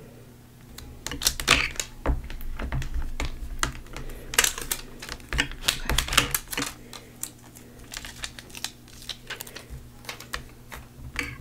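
Transfer tape and vinyl sheets being handled and peeled, making irregular crackling and clicking with a few denser crackles.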